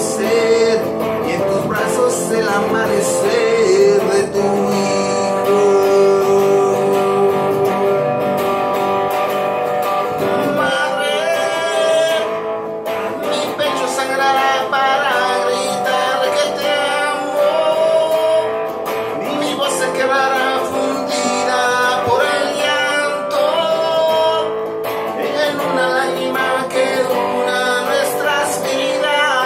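Acoustic guitar played live, strummed and plucked, with a man singing along at times.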